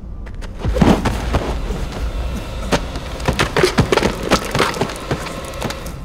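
A collapse inside a mine: a sudden low rumble with a heavy crash about a second in, then a long clatter of falling rock and debris, with many knocks and thuds for several seconds before it settles near the end.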